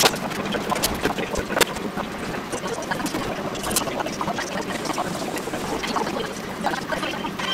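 Steady hiss of food sizzling in frying pans on a gas stove, with a few light clicks and taps of plastic bento cups and boxes being handled and set down.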